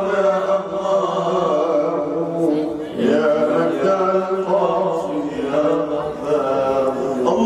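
A man's solo voice chanting a devotional poem through a microphone in long, wavering held notes, with a brief break for breath about three seconds in.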